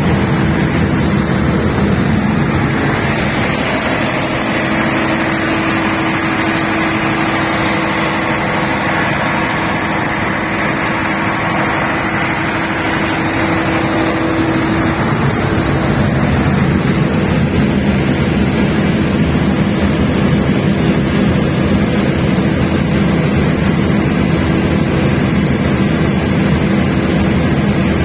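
Large 500 kVA diesel generator set running steadily at constant speed. Its steady mid-pitched tone fades about halfway through, leaving a heavier low rumble.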